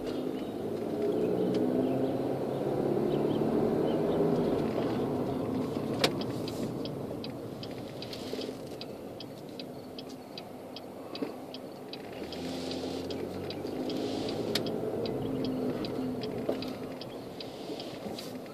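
Car engine and road noise heard inside the cabin, the engine note rising as the car pulls ahead. A turn-signal indicator clicks steadily, about three clicks a second, from about six seconds in until near the end, as the car makes a turn.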